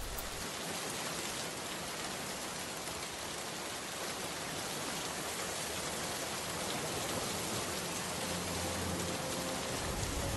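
Steady rain, an even hiss, with faint music tones coming in near the end.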